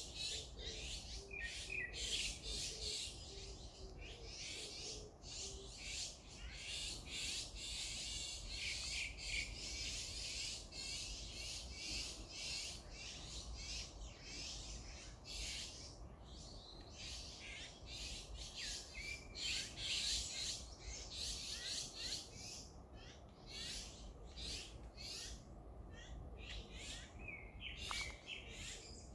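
Wild birds chirping and calling outdoors, with many short high calls overlapping one after another. A faint run of low, evenly spaced notes sounds in the first few seconds.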